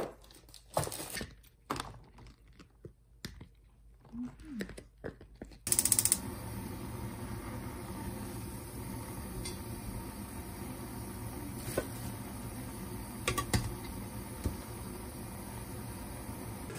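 Shopping items and plastic wrapping being handled on a table: scattered sharp clicks and rustling. About six seconds in this changes to a steady hum and hiss from a pot cooking on a lit gas burner, with a couple of light metal clinks.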